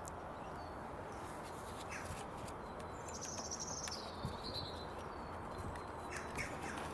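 A bird calling once in the middle, a short warbled call that falls in pitch, over steady background noise, with a few faint clicks.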